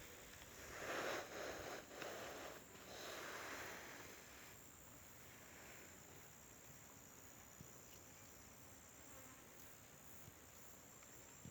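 Insects chirring: a faint, steady high-pitched drone throughout, with a louder stretch of noise in the first few seconds.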